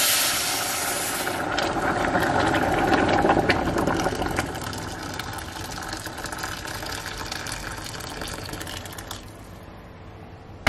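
Water poured from a jug into a hot stainless-steel pot of toasted flour and red lentils. There is a loud hiss as the water first hits the hot pan, which drops away after about a second. A steady pouring splash follows and tapers off at around nine seconds.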